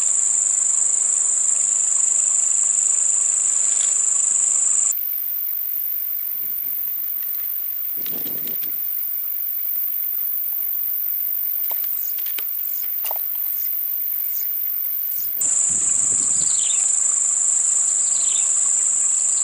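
Insects shrilling steadily in a high, continuous drone. About five seconds in it changes to a thinner, higher-pitched drone and turns slightly quieter, and the first drone returns about four seconds before the end. A few short falling chirps sound near the middle and near the end.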